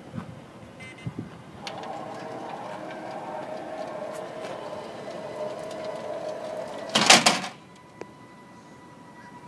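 Minivan's powered fold-out wheelchair ramp deploying: a steady motor whine from about two seconds in, ending in a loud clatter about seven seconds in as the ramp comes down onto the pavement.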